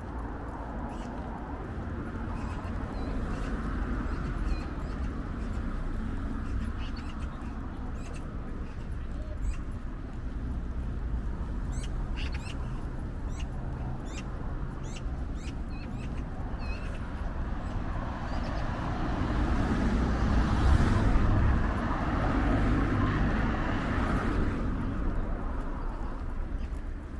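City street ambience heard while walking: a steady low rumble with scattered sharp clicks. It swells louder for a few seconds about twenty seconds in, as something passes close by.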